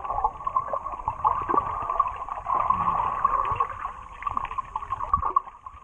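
Water gurgling and bubbling with many short chirping glides and ticks, muffled as heard underwater while snorkeling.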